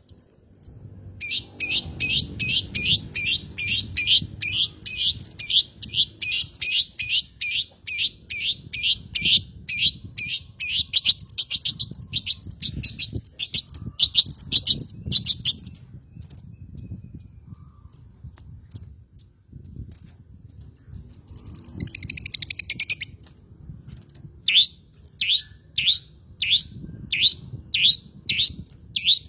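Long-tailed shrike (cendet) calls from a lure recording: fast runs of short, sharp downward-sweeping notes, several a second, with a slower series of louder downward calls near the end. This is a pancingan, played to set a silent captive shrike singing.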